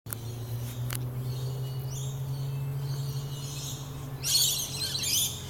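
Australian magpie calling: warbling, rising notes from about two seconds in, then a louder harsh burst of calling near the end. A steady low hum runs underneath.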